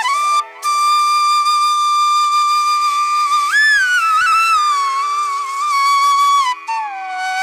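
Background music: a single melody line holding long notes, rising once near the middle and then sliding down to lower notes.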